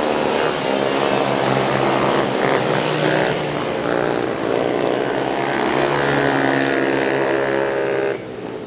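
Engines of small racing ATVs running hard as two quads race through the corners, the pitch rising and falling with the throttle. The sound becomes much quieter suddenly near the end.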